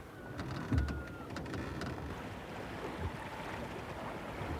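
Water washing and wind around a wooden sailing launch under way. A dull knock comes about a second in and another about three seconds in.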